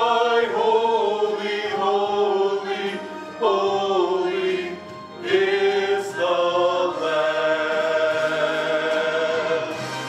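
Men singing a worship song into handheld microphones, holding long notes with short breaks between phrases.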